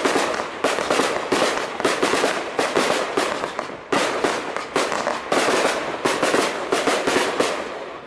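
Fireworks barrage: a rapid, continuous run of shots and small aerial bursts, several a second, fading near the end.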